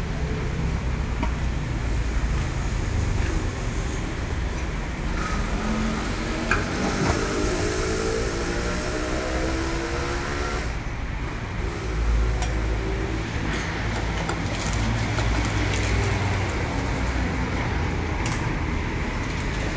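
Steady road traffic noise with a low rumble; between about six and ten seconds in, a passing vehicle's engine rises in pitch. A few faint knocks of a cleaver on a wooden chopping board come through here and there.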